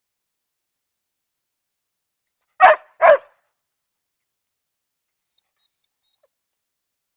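A dog barking twice in quick succession, two short barks.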